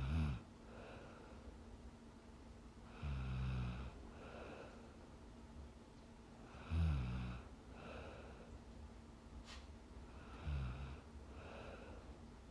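A young woman snoring in her sleep: three low snores about three and a half seconds apart, each followed by a softer breath. A faint click about nine and a half seconds in.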